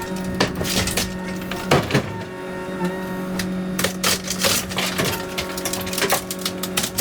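Excavator demolishing a house: a steady engine drone under many irregular sharp cracks, crunches and clatters of breaking debris.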